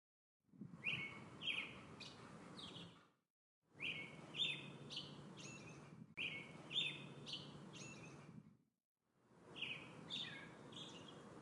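A songbird singing short phrases of quick, falling chirps over a soft outdoor hiss. The phrases come in four stretches of about two and a half seconds each, broken by gaps of complete silence.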